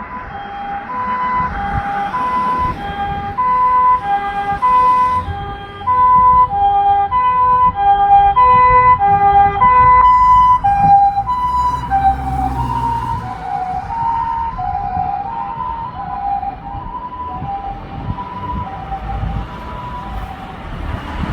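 Japanese ambulance two-tone hi-lo siren, its high and low tones alternating about once a second. About twelve seconds in it switches from the harmonic siren tone to the SAP500 siren mode, which is slightly lower and differently voiced. It is loudest in the first half.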